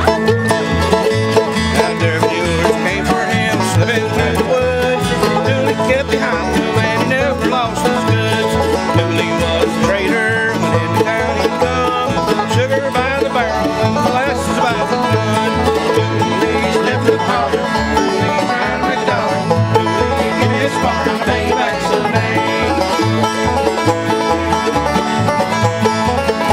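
Acoustic bluegrass band playing: mandolin, banjo and acoustic guitar picking over an upright bass that plucks a steady beat.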